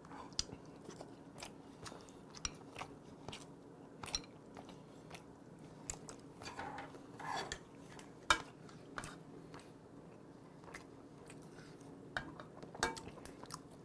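A person chewing and smacking their lips close to the microphone while eating braised pomfret and rice, with light clicks of chopsticks and a spoon against dishes and one sharper knock about eight seconds in. A faint steady hum sits underneath.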